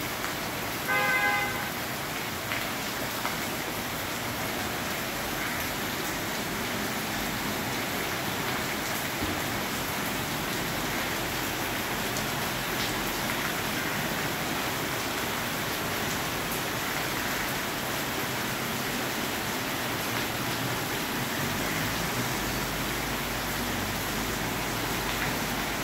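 Steady rain falling on trees and corrugated metal sheet roofs, an even hiss throughout. About a second in, a short pitched tone sounds once, briefly.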